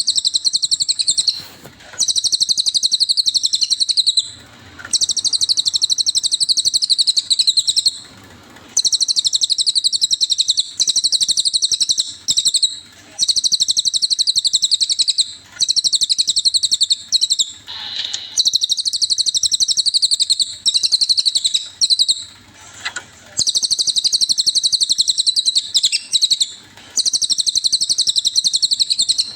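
Cililin bird song: long runs of very rapid, high-pitched chirping trills, each lasting a few seconds, broken by short pauses.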